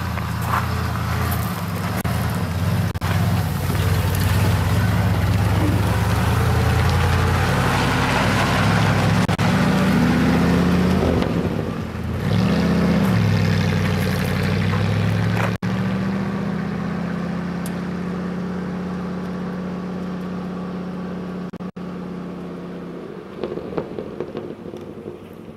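A motor vehicle's engine running under way, its pitch dropping and rising again partway through, then steadying and fading away near the end.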